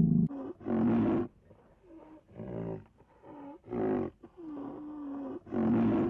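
A large wild animal calling over and over: pitched moaning calls, each under a second, some sliding in pitch, with louder calls about a second in, around four seconds in and near the end, and one steadier held call just before the last.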